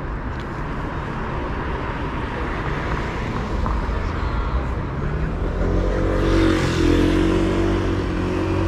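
Street traffic rumbling steadily. From about five seconds in, a motor vehicle's engine grows louder and passes close, its pitch bending, loudest around six to seven seconds.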